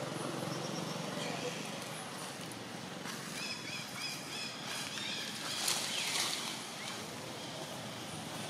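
Steady outdoor background noise, with a quick run of short high chirps about three seconds in and a brief falling squeak near six seconds.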